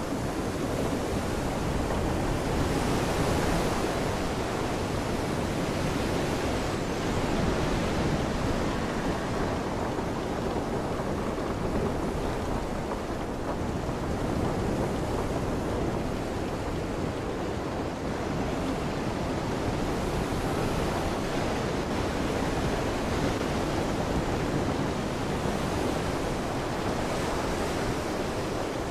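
Steady rushing noise of wind and rain, with wind buffeting the microphone.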